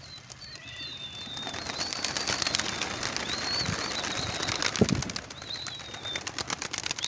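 A large flock of domestic pigeons taking off together: a dense rush of flapping wings with many sharp wing claps. It builds from about a second in and is loudest in the middle, with a single low thump near five seconds in.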